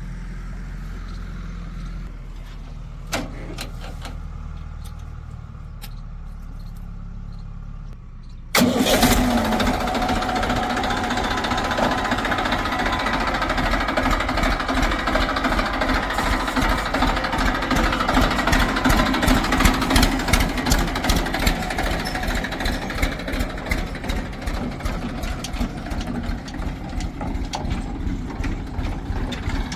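A diesel engine of heavy farm or digging machinery runs low and steady. About eight seconds in, a much louder diesel engine cuts in and keeps running hard with rapid knocking strokes.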